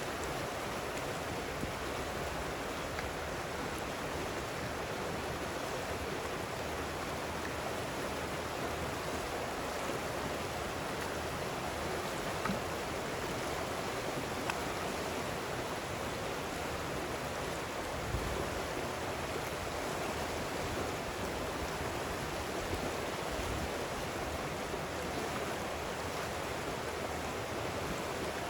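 Chikusa River water flowing steadily, with a couple of brief faint knocks midway.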